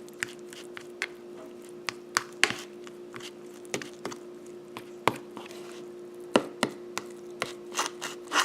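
A utensil clicking and scraping against a bowl at an uneven pace while stirring deviled-egg yolk filling, over a steady low hum.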